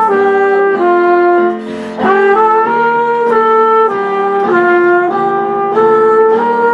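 Instrumental background music: a melody over held chords, stepping to a new note about every half second, with a short dip in loudness just before two seconds in.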